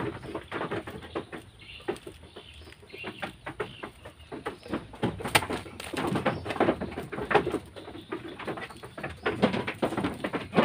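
A hand hoe chopping again and again into loose, compost-rich soil: irregular dull thuds, with the scrape and crumble of clods being turned over.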